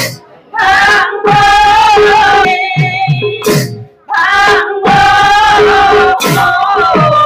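Women singing a devotional song together with a microphone, accompanied by small hand cymbals and a barrel drum whose low strokes fall in pitch. The singing breaks briefly twice, near the start and about four seconds in.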